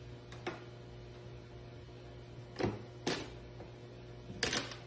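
Plastic pet-door flap clacking as a dog paws at it and another dog pushes through: a few short knocks, some in quick pairs, over a steady low hum.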